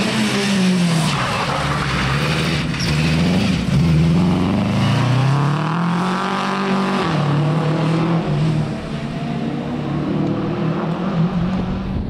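Nissan Micra rally car's engine revving hard as it drives past, the pitch falling and climbing again with lifts and gear changes, with a sudden drop about seven seconds in.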